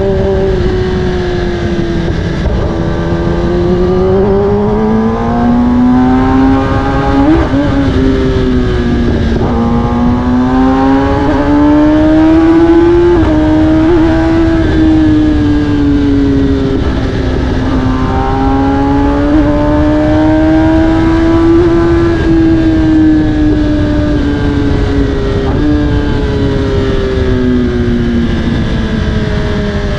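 Kawasaki ZX-10R's inline-four running through an Akrapovic carbon exhaust while riding. The engine pitch climbs and falls several times, with a few short breaks where it drops sharply, as the bike changes gear.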